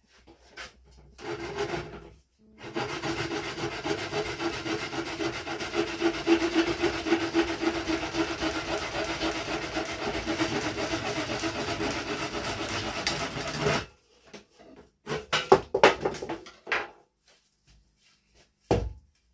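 Saw cutting through a hazel stick, a steady continuous sawing for about eleven seconds that stops suddenly, followed by a few short knocks of the stick and tools being handled.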